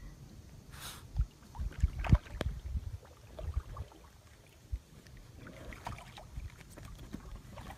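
Paddling an inflatable kayak on open water: water lapping and paddle sounds against the hull, with a few low knocks, the strongest about one and two seconds in.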